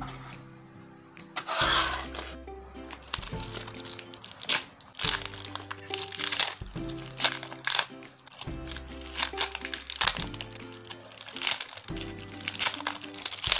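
Clear plastic packaging crinkling as the wrapped sticker sheets and bagged paper are handled, over background music with a bass pattern that repeats every second and a half or so.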